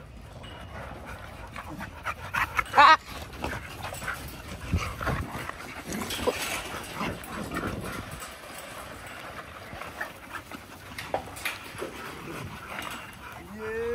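American bully dogs whining and panting around metal kennel gates, with scattered clicks and knocks. A short high squeal about three seconds in is the loudest sound, and a dog's whine rising and falling comes near the end.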